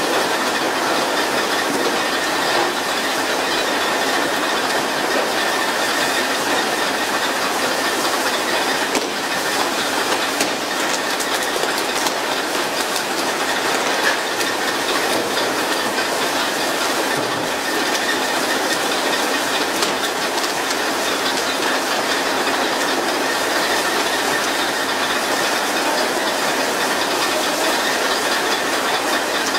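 Steady rushing hiss of the sprinkler jets on a pole-and-line skipjack tuna boat spraying water over the sea beside the hull, the spray used to keep the tuna school feeding at the surface, with scattered faint knocks.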